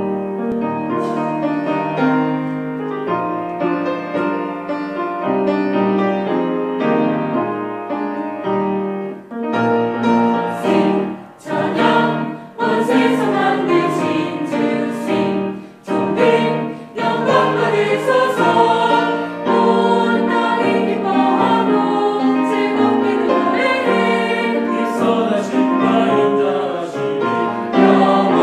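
Mixed church choir singing an anthem, accompanied by piano, cellos and violin.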